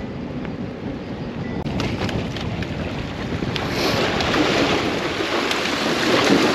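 Wind buffeting the microphone, a steady rumbling rush that grows louder about two seconds in, with a few small clicks and knocks.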